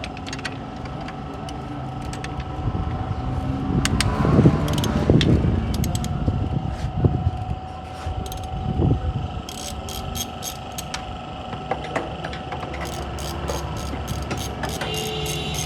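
A car engine running steadily, swelling louder for a couple of seconds about four seconds in and briefly again near the nine-second mark. Sharp metallic clicks sound over it, coming in a quick regular run near the end.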